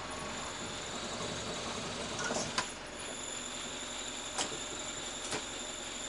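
Diesel truck engine running steadily, with a faint high whine and three short sharp clicks.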